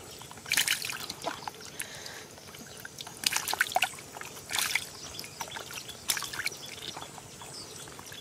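Hands sloshing and splashing in shallow muddy water while groping through the mud for catfish, in short irregular splashes a second or more apart.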